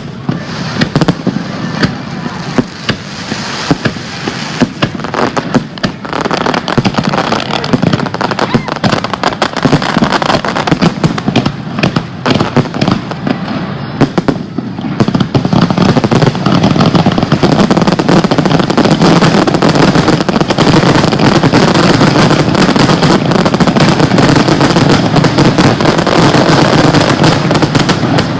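Professional display fireworks finale: aerial shells bursting one after another with crackling reports, building about halfway through into a dense, nearly continuous barrage of rapid bursts.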